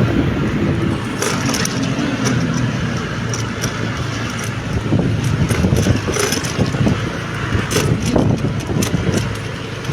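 Road traffic noise heard while riding along a street: a steady low rumble with scattered short clicks and rattles.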